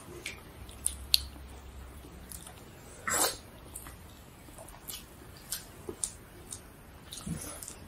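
Eating sounds: chewing and lip smacks, with fingers working rice and curry on banana leaves, as scattered small clicks. One louder, longer sound comes about three seconds in.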